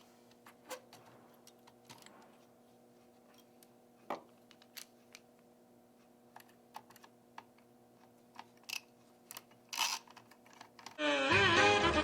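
Scattered light clicks and taps of laptop parts being handled as the graphics card is lined up and seated on the motherboard, over a faint steady hum. Music starts about a second before the end.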